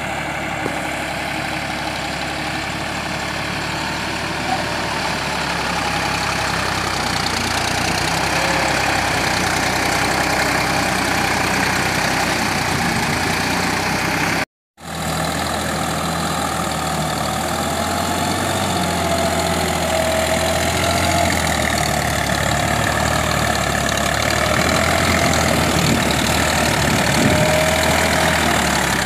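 Deutz-Fahr tractor's diesel engine running steadily under load as it pulls a rotary tiller through wet mud. The sound drops out for a moment about halfway, then the engine carries on slightly louder.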